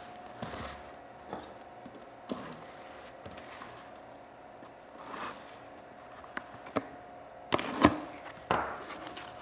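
A small cardboard box being handled and opened: scattered light knocks and scrapes of cardboard against the table, then a louder run of sharp knocks and rustling about three quarters of the way in as the tape is cut and the flaps are pulled open.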